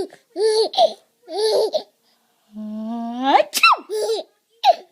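A 7-month-old baby laughs in short, repeated bursts. Midway, an adult does a drawn-out mock sneeze, "aaaa-choo": a held "aaa" that climbs in pitch and ends in a sharp "choo". The baby breaks into laughter again right after it.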